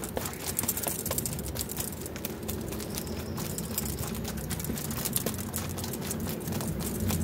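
A small hand tool scraping and picking old soil out of a bonsai hornbeam's root ball: a rapid, irregular crackle of soil grains and fine roots being raked loose.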